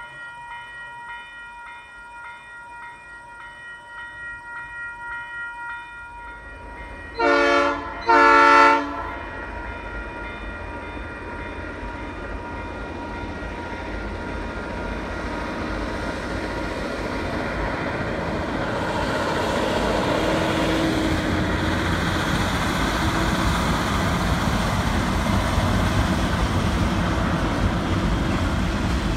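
A railway crossing bell rings in steady pulses. About seven seconds in, the approaching locomotive sounds its horn in two blasts, a short one then a longer one. The rumble and wheel noise of the passing freight cars then builds and keeps growing.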